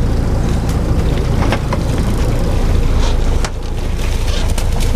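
Boat engine running with wind rumbling on the microphone. A few short knocks and splashes come as a small mahi-mahi is hauled up by the leader and swung aboard.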